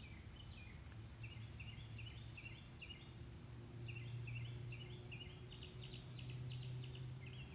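Faint chirping of small birds, many short high notes in quick runs, over a low steady hum.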